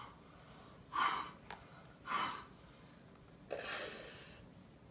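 A child's breaths as she blows through a tube to inflate the plastic launcher bag of a homemade air rocket: three breathy puffs spaced a little over a second apart, the last one longer.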